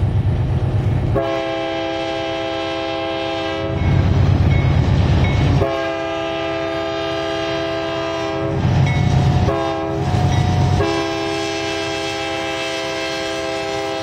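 BNSF GE Dash 9-44CW diesel locomotive sounding its air horn, a chord of several notes, in the grade-crossing pattern: two long blasts, a short one, then a final long one. The diesel engine's low rumble fills the gaps between blasts.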